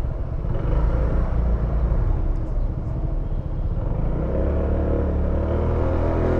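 Honda SH150i scooter's single-cylinder engine running on the move, mixed with wind and road noise. About four seconds in, the engine note becomes clearer and steadier.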